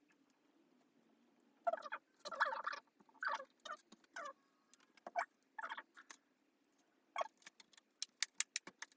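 Hands working on an open keyboard and its cable: plastic clattering and scraping, then a quick run of sharp clicks near the end, over a faint steady hum.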